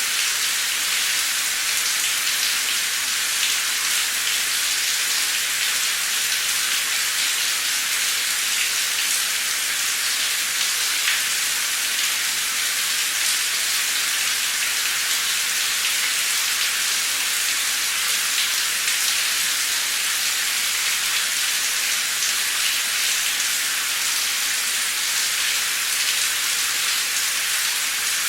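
Heavy torrential rain pouring steadily, an even hiss with fine drop patter.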